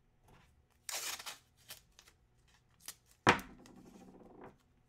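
Packaging and items being handled out of sight: a short rustle about a second in, then a sharp knock a little after three seconds, followed by a second or so of faint rustling.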